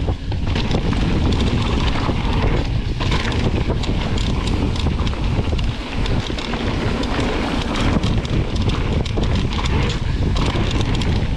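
Wind buffeting the microphone of a camera on a mountain bike riding fast down a dirt trail, with the tyres rumbling over the packed dirt and the bike rattling and knocking over bumps.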